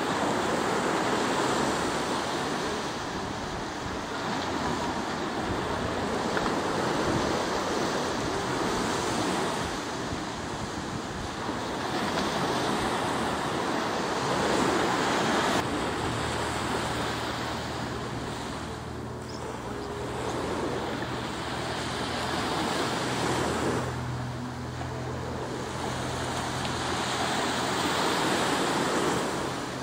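Ocean surf breaking on a beach: a steady rushing wash that swells and eases every few seconds. A low steady hum comes in about halfway through.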